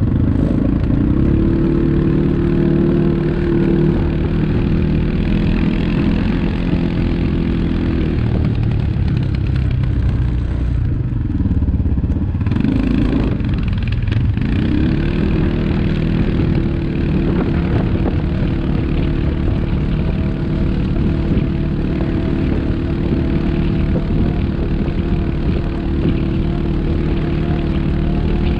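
ATV engine running at steady revs, easing off and wavering for several seconds near the middle before settling back to the same steady pitch.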